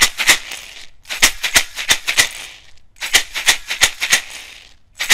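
A shaker rattling in a rhythm: quick sharp shakes in phrases about two seconds long, each ending in a short hiss, with a brief silence between phrases.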